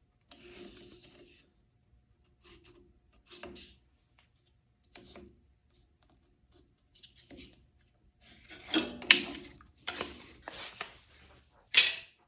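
Intermittent rubbing and scraping of a wooden block being handled, with several sharper knocks in the last few seconds.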